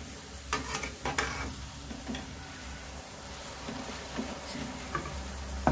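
A bhatura deep-frying in hot oil in a metal kadai, sizzling steadily, with a few short scrapes and presses of a spatula against the pan about a second in.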